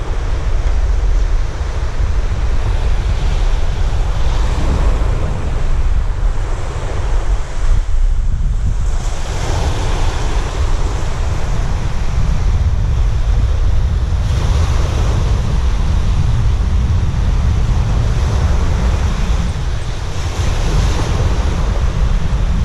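Surf breaking and washing up a sandy beach, surging every few seconds, with strong wind buffeting the microphone in a constant low rumble.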